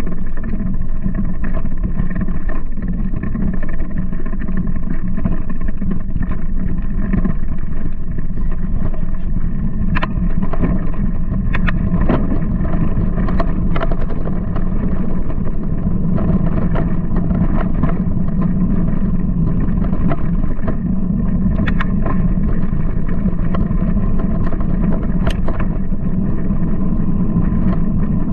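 Giant Talon mountain bike rolling along a dirt singletrack, heard from a bike-mounted camera: a steady loud rumble of tyres on dirt mixed with wind on the microphone. A cluster of sharp clacks comes about a third of the way in and another near the end, the bike rattling over bumps.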